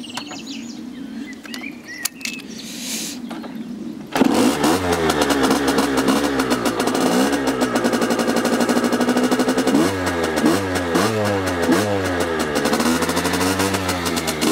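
Derbi Senda R X-Race 50cc two-stroke single-cylinder engine starting about four seconds in, then revved up and down, settling briefly, and blipped with several quick throttle twists near the end. It breathes through a derestricted stock exhaust with a modified cartridge and a drilled airbox.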